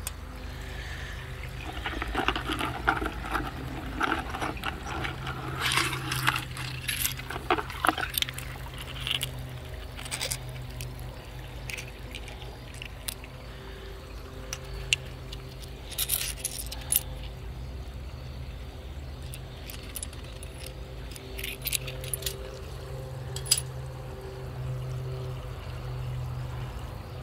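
Wet stone slices (petrified wood and agate) being handled and set into a wire rack: scattered sharp clicks and clinks of stone against stone and against the wire, with wet splashy handling noise during the first several seconds, over a steady low hum.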